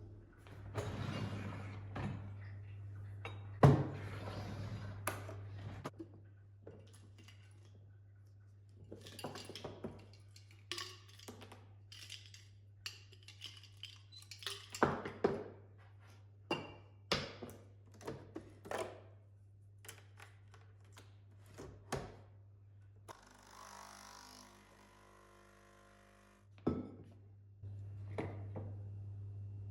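Kitchen handling sounds: a string of separate knocks, thuds and clinks of dishes and utensils, the sharpest thud about four seconds in. A steady low hum runs underneath and drops out for a few seconds near the end.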